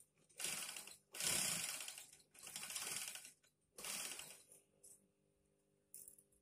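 Industrial flatbed sewing machine stitching fabric in four short runs of about a second each, a rapid clatter of the needle, then two brief blips as the operator taps the pedal near the end.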